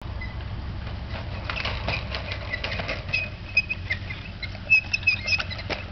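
Child's plastic tricycle ridden across a grass lawn: a run of light rattling clicks, then short high chirping squeaks repeated through the second half.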